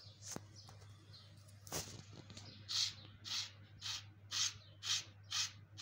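Hand rubbing back and forth over a bare forearm, about two scratchy strokes a second in the second half, after a single click near the start.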